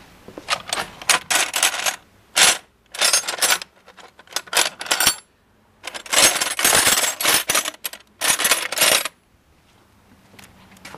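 Steel combination wrenches clinking and clattering in a tool chest drawer as they are rummaged through, in several bouts of rattling with short pauses between. The rattling stops about nine seconds in.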